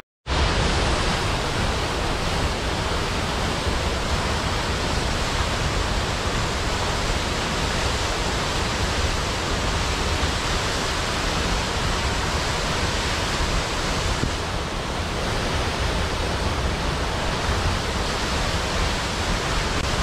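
Waterfall: a steady, unbroken rush of falling water. It cuts in just after a moment of silence at the start.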